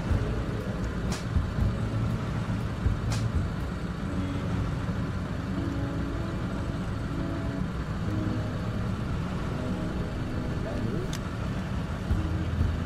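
Car engine idling steadily, a low rumble, with a few sharp clicks at intervals.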